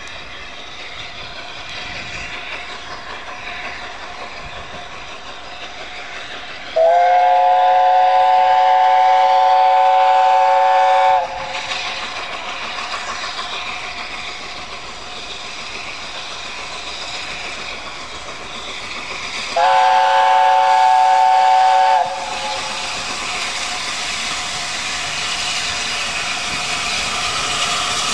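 LNER Peppercorn A1 Pacific steam locomotive 60163 Tornado approaching with its train, growing steadily louder. It sounds its chime whistle twice: a long blast of about four seconds, then a shorter one of about two seconds, each a steady chord of several notes.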